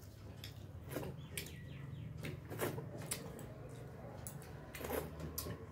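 Eating by hand: fingers mixing rice and mutton curry on metal plates, with scattered soft smacks and clicks from chewing and lips.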